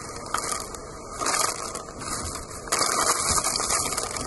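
Category 5 Hurricane Dorian's wind blowing hard, a steady rushing noise with driving rain. It swells into stronger gusts about a second in and again just under three seconds in.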